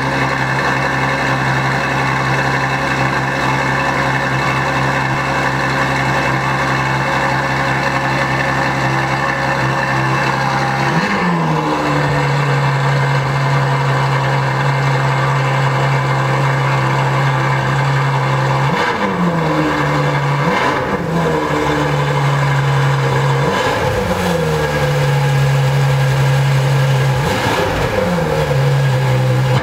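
Ferrari F12berlinetta's 6.3-litre V12 idling steadily through its quad exhausts. From about ten seconds in it takes a handful of short, low throttle blips, each rising quickly and falling back to idle.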